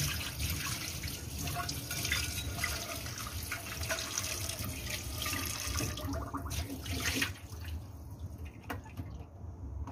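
Kitchen tap running, the water splashing onto a nonstick frying pan in a stainless steel sink as the pan is rinsed. The water stops about seven seconds in.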